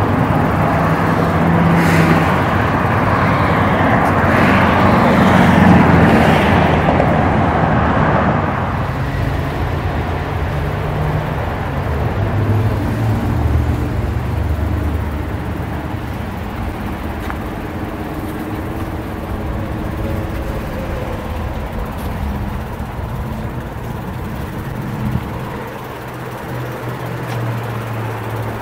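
Steady road-traffic noise with a low rumble, louder for about the first eight seconds and then easing off a little.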